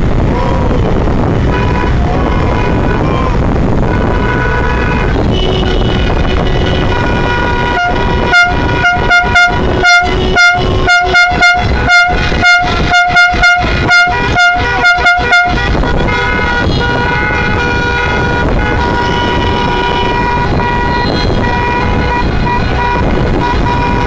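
Car horns honking in celebration, with held toots and, from about a third of the way in, a fast run of some twenty short toots for about seven seconds, over steady wind and road noise from a moving car.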